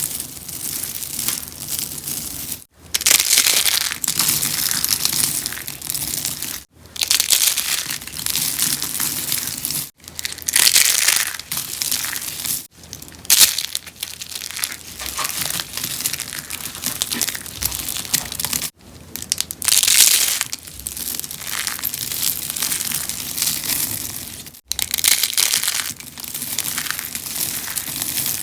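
Rose soap being crunched: a dense, crisp crackling crunch that goes on in long stretches, broken by several abrupt, very brief gaps.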